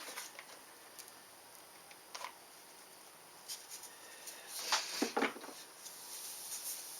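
Faint workbench handling noises: light clicks and small scratches as parts are handled, with a couple of louder, short rustling scrapes about five seconds in.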